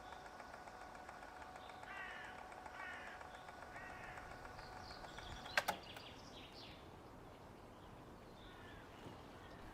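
Faint outdoor ambience with a few bird calls, three of them about a second apart and fainter ones after, over a faint steady hum. A single sharp click comes about halfway through.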